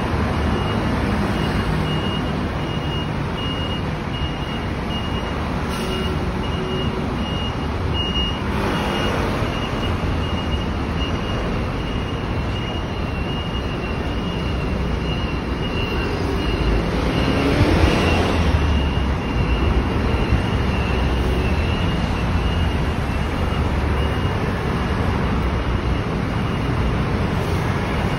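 Road traffic on a busy city street: a steady rumble of cars and buses going by, with vehicles passing close twice, the louder about two-thirds of the way through. A high, rapidly repeated beep sounds through the middle stretch.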